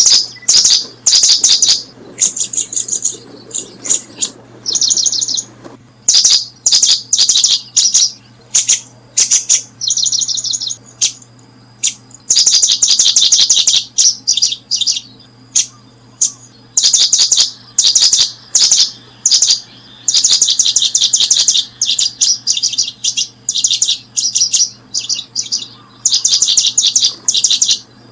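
Small birds chirping in loud, rapid clusters of high notes, one burst after another every second or so.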